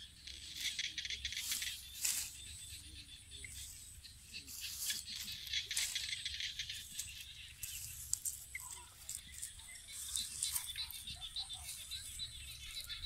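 Leafy branches and dry leaves rustling and crackling, an irregular run of short clicks and scrapes.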